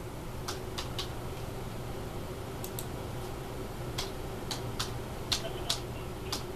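About a dozen sparse, irregular clicks of a computer keyboard being typed on, over a steady low hum.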